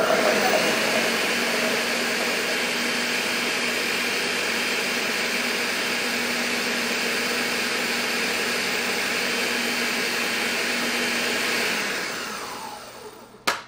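Countertop blender running steadily, puréeing chunks of ginger, garlic and greens with juice into a green marinade. Near the end the motor winds down with a falling pitch, and a sharp click follows as it stops.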